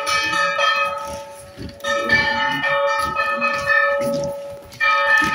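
Temple bell (ghanta) being rung over and over, clanging with a long ringing tone between strokes; fresh bursts of strikes come about two seconds in and again near the end.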